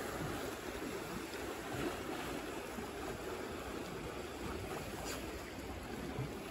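Sea water washing and lapping at the shore, with some wind: a steady hiss of water noise.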